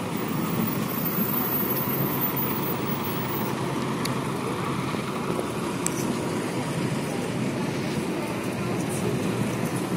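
City bus driving slowly past close by, its engine and tyres running steadily over the street traffic.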